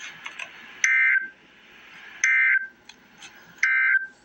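Emergency Alert System end-of-message signal: three identical short bursts of buzzing digital data tones, about a second and a half apart, over faint hiss and crackle. The three bursts mark the close of the alert broadcast.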